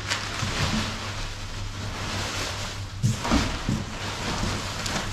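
Brown packing paper rustling and crinkling as hands dig through a cardboard parts box, with a couple of louder bumps about three seconds in. A steady low hum runs underneath.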